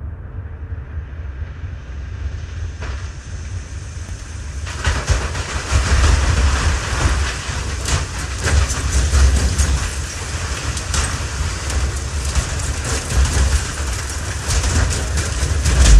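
Industrial machine noise from a field recording: a steady low rumble under dense rattling and clicking. It fades in and grows louder about five seconds in.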